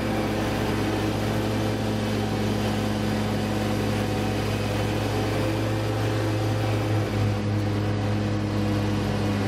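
Exmark Lazer Z zero-turn mower running steadily while mowing grass, its engine a constant hum, wavering briefly about seven seconds in.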